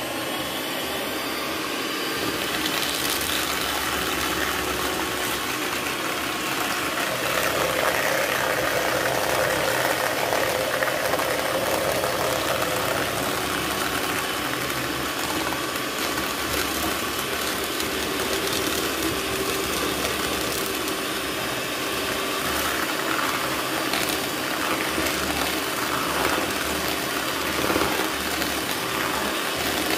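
Miyako electric hand mixer running steadily at high speed, its beaters whisking eggs and sugar in a plastic bowl.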